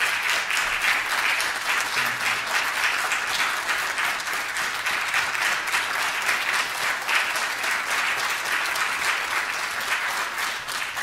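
Congregation applauding, many hands clapping steadily.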